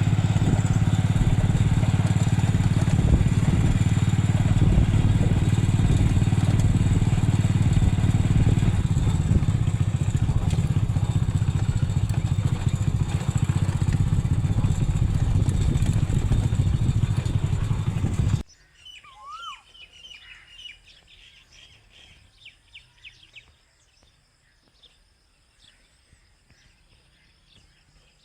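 Steady engine and road noise of a moving vehicle, cutting off abruptly about eighteen seconds in. Then quiet open-air sound with a few bird chirps and calls and a steady high insect hum.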